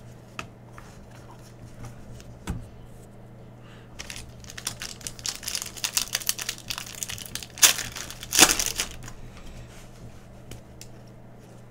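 Foil wrapper of a Panini Prizm basketball hobby pack crinkling as it is handled and torn open, with two loud rips a little past the middle. A few light clicks of cards being handled come before it.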